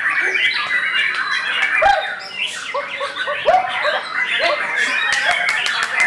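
Caged songbirds singing and chattering together in a dense, overlapping mix of whistled phrases and harsh calls, with a run of rapid clicking notes near the end.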